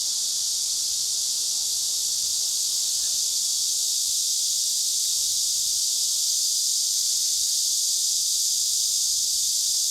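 Steady, high-pitched buzzing chorus of summer cicadas, unbroken throughout.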